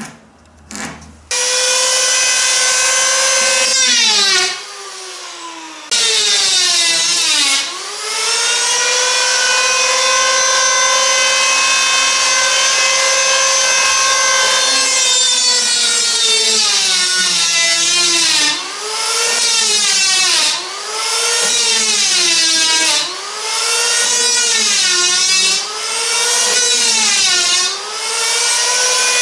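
Handheld electric power planer running with a steady high whine. The motor's pitch sags each time the blades bite into the wooden mast stock and recovers between passes, repeatedly in the second half.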